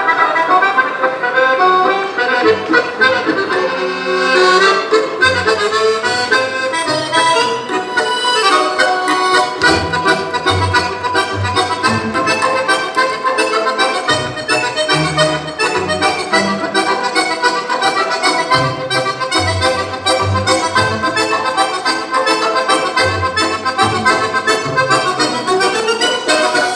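Instrumental music with a fast run of short melody notes over a bass line.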